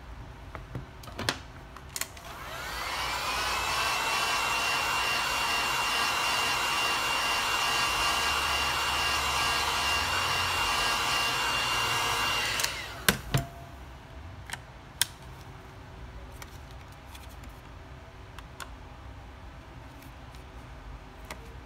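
Hot-air blower switched on, its fan pitch rising as it spins up, then running steadily for about ten seconds before it cuts off, used to heat the phone and soften the back-panel adhesive. A few sharp clicks and taps follow.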